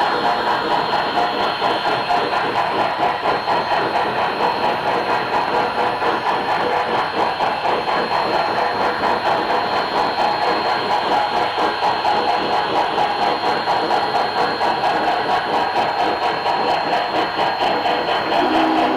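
HO scale model steam locomotive's LokSound sound decoder playing steady, fast, even steam chuffing through its speaker as the model runs, with a steady high whine.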